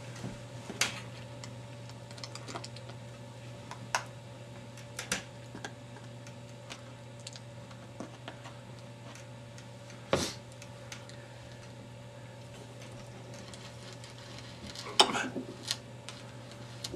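A 14x1mm left-hand threading die in a hand die stock being turned forward and back on a rifle's steel barrel muzzle, cutting new threads. Scattered sharp metallic clicks a few seconds apart, with a quick cluster of them about fifteen seconds in.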